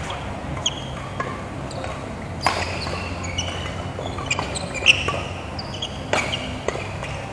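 A badminton rally: rackets crack against the shuttlecock, sharpest about two and a half and six seconds in, and court shoes give many short squeaks on the mat.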